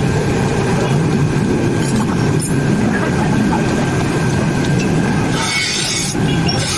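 Sharpening grinder running with a steady low rumble and a faint whine; about five and a half seconds in, a scissor blade meets the wheel in a short, hissing grind of steel.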